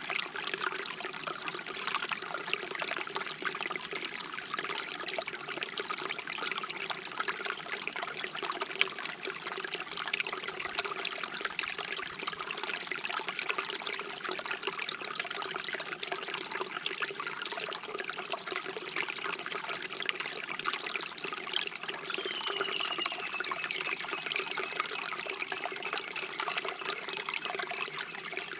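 Shallow stream babbling and trickling steadily over stones.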